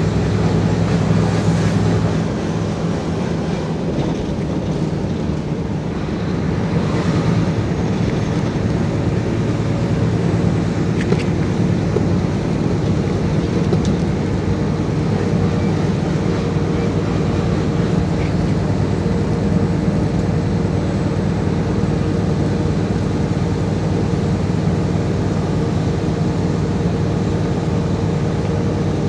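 Mercedes-Benz Actros 1844's V6 diesel engine pulling the loaded truck up a ramp, heard from inside the cab as a steady drone with tyre and road noise; its note changes about two seconds in.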